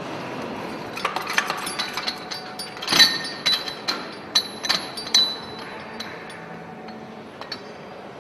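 Metal parts of a hydraulic stud-tensioning tool clinking and knocking as it is taken off the cylinder head studs of a large engine: a run of sharp clinks over the first half, the loudest about three seconds in, then two light ticks near the end, over a steady background hiss.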